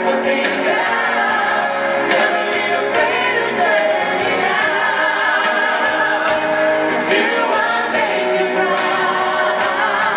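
Male and female pop singers singing together into microphones over backing music, a live group vocal performance.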